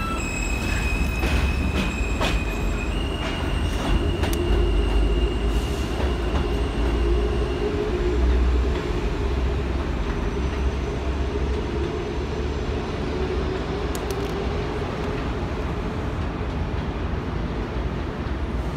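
New York City Subway train with R160-type cars pulling out of an elevated station. Its motors give a whine that steps up in pitch twice in the first few seconds and fades out about eight seconds in, over a steady low rumble of the cars on the elevated track, with a few sharp clicks early on.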